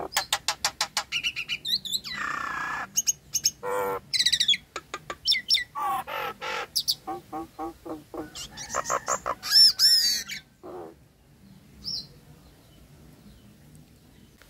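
Nias hill myna calling: a quick run of sharp clicks, a harsh rasp, then a varied string of loud whistles and squawks. The calls drop away to near quiet with a single short whistle for the last few seconds.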